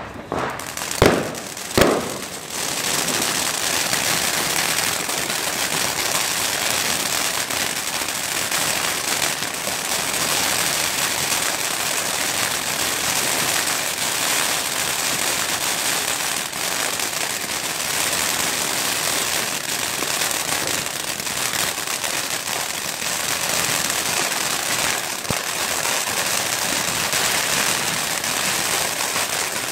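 Ground fountain firework spraying sparks: two sharp bangs about a second and two seconds in as it catches, then a steady, dense hiss of spraying sparks that goes on without a break.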